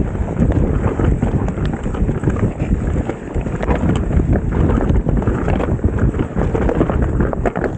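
Mountain bike descending a dirt singletrack, heard from the rider's own camera: wind buffeting the microphone over the tyres rolling on the trail, with many quick clicks and knocks as the bike rattles over bumps.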